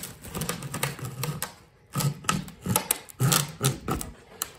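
Carbon-fibre fuselage mold half cracking as it is pried off its plug: rapid crackling in several spells, the sound of the mold releasing.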